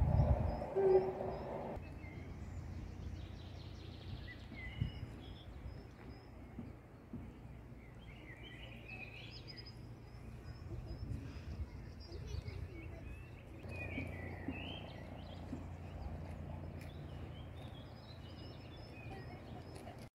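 Small songbirds chirping and warbling on and off over a steady low outdoor rumble, with a short thump right at the start.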